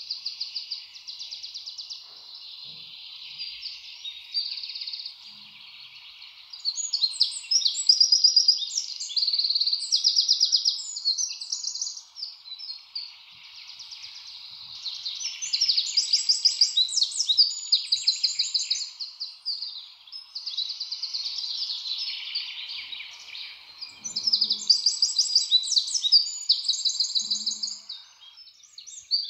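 A chorus of small birds chirping and trilling, with rapid high chattering calls that swell and fade in loud stretches every few seconds.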